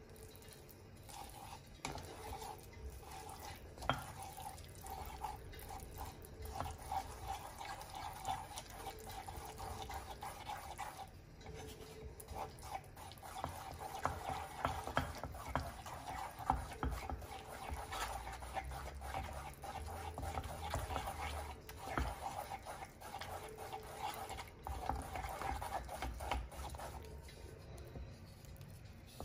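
Wooden spatula stirring and scraping a thick mixture of melting cheese and cornmeal in a non-stick pan: continual scrapes, taps against the pan and wet, sticky stirring sounds.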